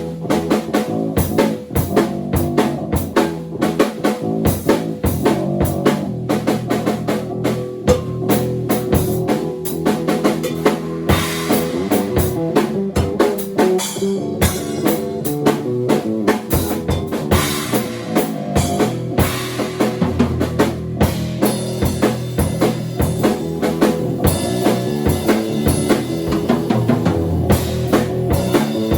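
Bass and drum kit improvising together: a busy drum groove of bass drum, snare and rimshots over a moving bass line, with cymbal washes swelling in twice.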